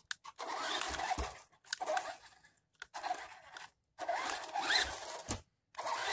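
1/16 Temi RC truck's electric drive motor and gears whining in about five short bursts of throttle as it drives, the pitch rising within some bursts.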